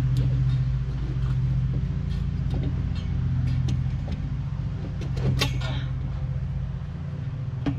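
A steady low motor hum throughout, with light clinks and one louder clank about five seconds in from the galvanized metal pipes of a chicken-run frame being handled and fitted together.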